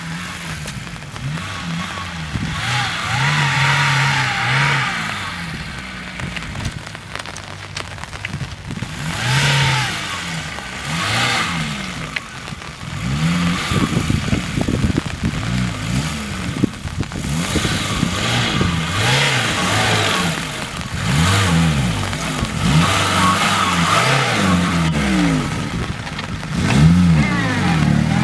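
Lada Niva's four-cylinder engine revving up and down repeatedly as it is driven off-road, its pitch rising and falling every second or two.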